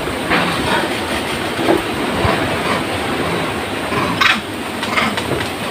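Steady rushing, rumbling noise with a few short crackles scattered through it, the clearest about four seconds in.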